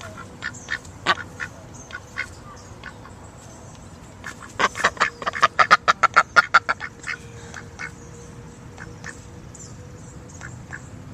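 Duck quacking: scattered single quacks, then a fast run of loud quacks lasting about two and a half seconds midway, then a few fainter quacks.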